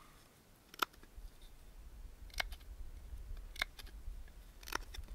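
Knife blade cutting into a bow-drill fire board to shape its notch: four sharp clicks of the blade in the wood, a second or so apart, over a faint low rumble.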